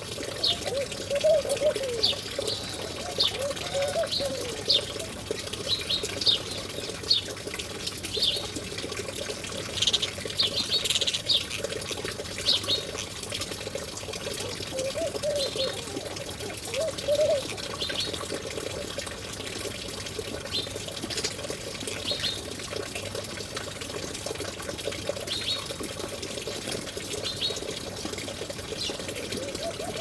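House sparrows chirping in short, repeated notes over steady trickling water, with lower wavering notes near the start and again midway.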